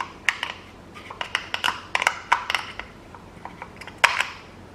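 A new cartridge oil filter element being fitted onto its housing cap: irregular sharp clicks and taps as the parts are handled and pushed together, with the loudest click about four seconds in.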